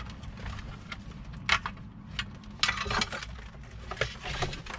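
Plastic clicks and rattles from a radio wiring harness and its connectors being handled against the head unit's housing, in a few short clusters: about a second and a half in, around three seconds, and again near the end.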